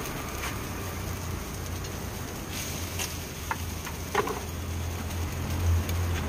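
Steady sizzling of vegetables and rice frying in a large iron wok over a gas burner, with a low steady roar underneath. A few sharp metal clinks against the wok, the loudest about three and a half and four seconds in.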